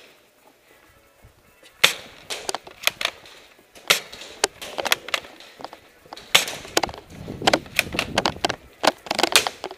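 A rapid, irregular run of sharp clacks and knocks, beginning about two seconds in.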